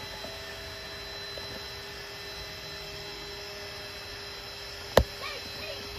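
Small electric air pump running with a steady hum, blowing air into an inflatable paddling pool. A single sharp knock about five seconds in.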